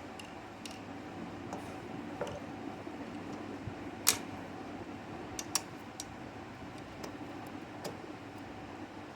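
Scattered sharp metallic clicks and clinks of tools and engine parts being handled, the loudest about four seconds in and a few more close together a second later, over a steady low hum.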